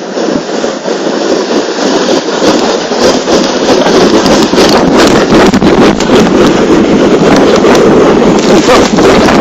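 Plastic hip sled sliding fast down a snow slope: a loud, rough scraping hiss of snow under the sled, with wind on the microphone, building over the first few seconds and then holding steady.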